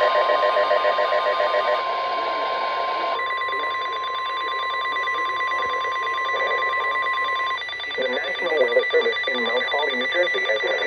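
NOAA Weather Radio 1050 Hz warning alarm tone, a steady single pitch, cutting off about seven and a half seconds in. An automated voice begins reading the warning about a second later.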